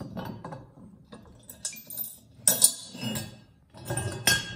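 Metal hardware clinking and knocking as a bolt, washer and nylock nut are fitted by hand to a metal log-clamp fixture and the fixture is handled on a wooden bench: a run of sharp clinks, loudest about two and a half seconds in and again near the end.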